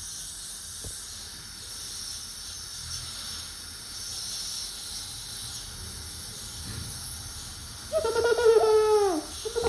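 A steady hiss. About eight seconds in, a young child's voice makes a drawn-out sound that falls in pitch.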